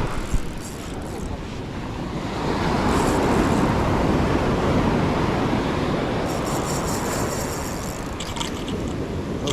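Ocean surf surging and washing against the shore, with wind buffeting the microphone. Near the end comes a fine, fast mechanical rattle.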